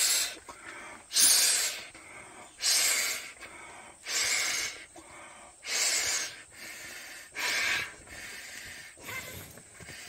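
Breath blown by mouth into the valve of a self-inflating camping mat's built-in pillow: a series of strong exhalations about every one and a half seconds, about seven in all, the last one weaker.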